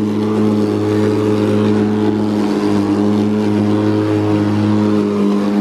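Makita DLM382 cordless lawn mower running while cutting grass: its electric motor and spinning blade give a steady, even hum.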